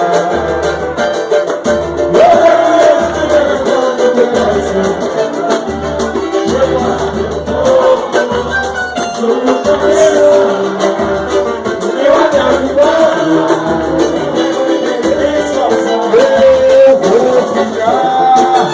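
Live samba group playing: a sung melody over string accompaniment and percussion, with a steady low beat.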